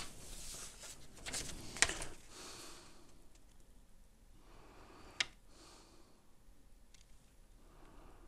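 Faint breathing close to the microphone through the first three seconds or so, with a sharp small click about two seconds in and another about five seconds in.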